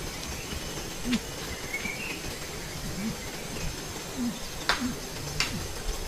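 Outdoor ambience: steady low background noise with scattered short bird calls, a brief higher chirp about two seconds in, and a few sharp clicks.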